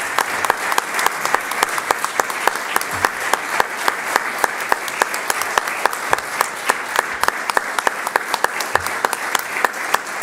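Audience applauding steadily, many hands clapping densely at once.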